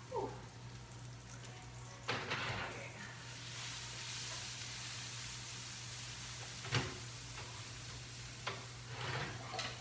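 Roasting asparagus sizzling on a hot pan in an open wall oven, with a few clanks of the pan and oven rack as it is handled. A steady low hum runs underneath.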